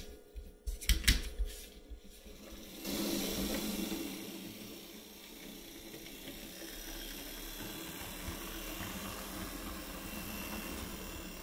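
A few sharp clicks and knocks, then from about three seconds in the steady whir of an HO scale model diesel locomotive's electric motor and gears as it runs along the track.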